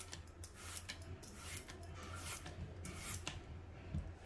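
A blade scraping strips of green skin off a zucchini: a run of faint rasping strokes, about two or three a second, over a low steady hum.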